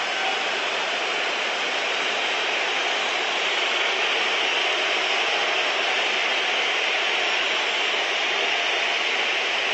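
Large stadium crowd making a steady, loud wall of noise while waiting for a penalty kick in a shootout, growing slightly louder about four seconds in.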